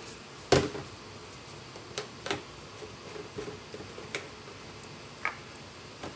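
Scattered light clicks and knocks of plastic being handled, the loudest about half a second in: a fabric softener bottle and its cap being picked up and set down on top of a washing machine.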